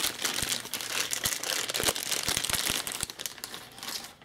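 Clear plastic packaging bag crinkling and rustling as it is handled and pulled open, with a string of small clicks and taps mixed in.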